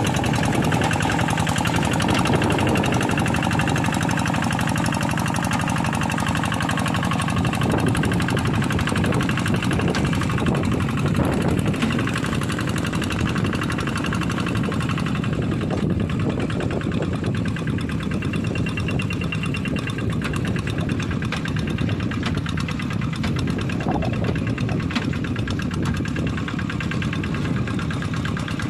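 Kubota single-cylinder diesel engine of a Quick G1000 two-wheel hand tractor running steadily with an even, fast knock of its firing.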